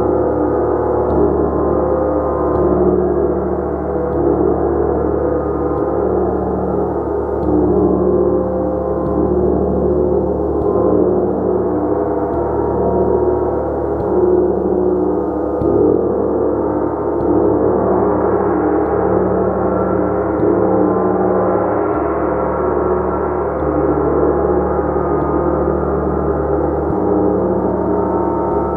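Gong sounding continuously as a dense, shimmering wash of many overlapping tones that swells and ebbs without a break.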